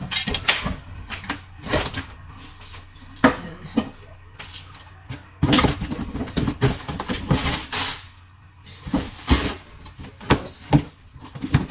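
Cardboard packaging being handled: box flaps are opened and folded back, with a series of knocks and a longer scraping rustle of cardboard about halfway through.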